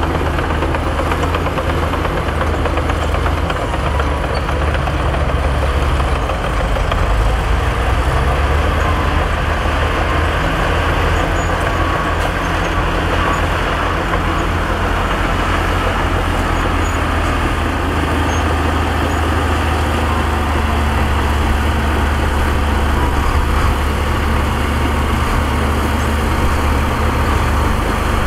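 Heavy diesel engines of dump trucks and a bulldozer running steadily, a continuous low rumble with no sharp knocks.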